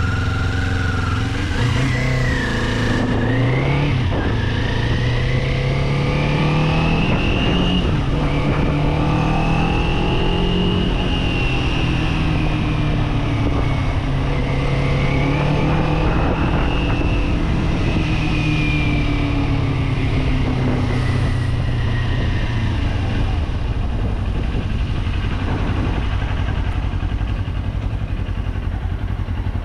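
Kawasaki Z400 parallel-twin engine riding along, its note climbing in the first few seconds, then rising and falling gently with the throttle, and settling lower over the last several seconds, over steady wind and road noise.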